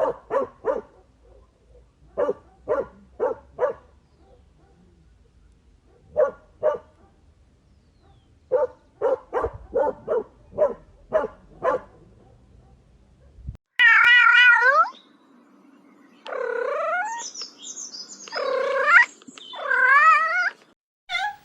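A dog barking in quick runs of three to six short barks. About 14 seconds in, a cat takes over with a few long meows whose pitch wavers, ending with a short one.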